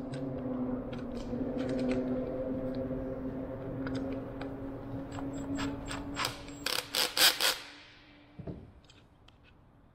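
Cordless drill running steadily for about six and a half seconds, drilling into a wooden rudder pedal through a metal hinge, then several sharp clicks near the end as it stops.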